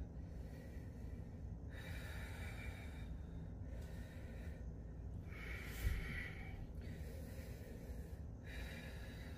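A woman breathing hard under effort while holding a side plank: a long, breathy rush about every three and a half seconds, with quieter breaths in between. There is a short soft knock about six seconds in.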